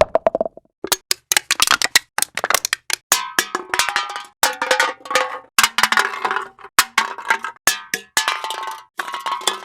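Metal objects dropped on a hard floor, clattering and bouncing in a quick run of many sharp hits, each with a short metallic ring.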